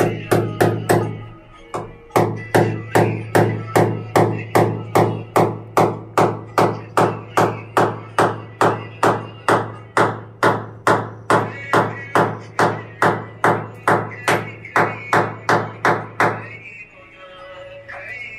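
Hammer knocking steadily, about two blows a second, fixing a pipe in a wall chase, with a short pause about two seconds in. The blows stop a couple of seconds before the end. Background music plays throughout.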